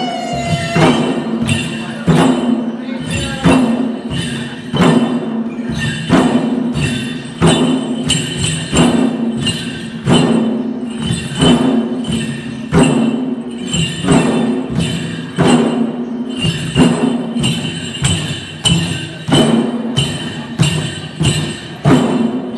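Chyabrung, Limbu double-headed barrel drums, beaten by hand by a group of dancers in a steady repeating rhythm, with a strong accented stroke about every second and a half and lighter strokes between, over a ringing tone.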